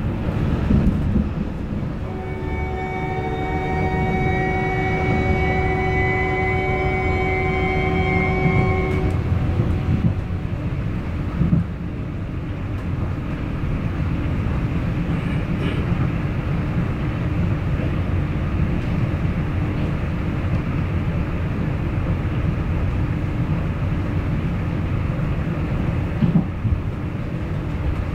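Hamburg U-Bahn DT4 metro train heard from inside the car as it runs along the track. For the first several seconds the electric traction drive gives a whine that rises slightly in pitch as the train gathers speed and then dies away. After that there is a steady rolling rumble, with a couple of brief knocks from the rails.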